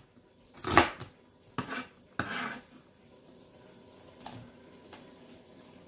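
A kitchen knife chopping onion on a plastic cutting board: a loud chop about a second in and two more within the next second and a half, then a single faint knock about two seconds later as the diced onion is moved off the board into a bowl.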